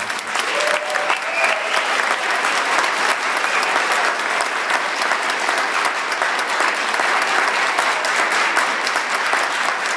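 Audience applauding: many people clapping in a dense, steady stream.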